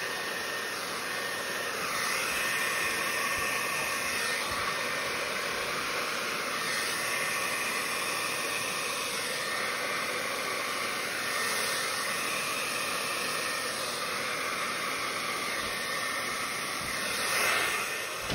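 Handheld hair dryer blowing a steady rush of air, pushing wet acrylic paint across a canvas in a Dutch pour. It gets louder for a moment near the end, then switches off abruptly.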